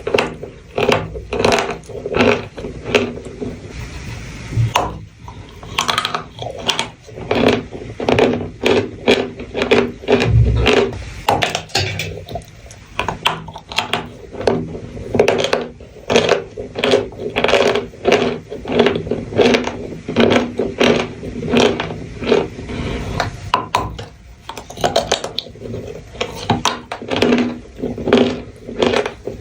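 Close-miked crunching of brittle chalk-like material being bitten and chewed, a sharp crisp crunch about twice a second.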